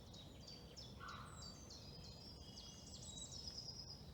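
Faint chorus of several songbirds singing, a steady run of short high chirps and trills, over a low background rumble.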